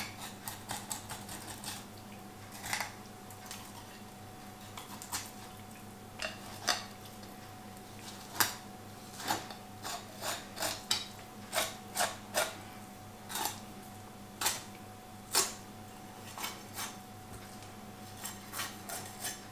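A filleting knife working along a sea bass's backbone and rib bones, giving a string of irregular small clicks and ticks as the blade catches on the bones. A faint steady hum runs underneath.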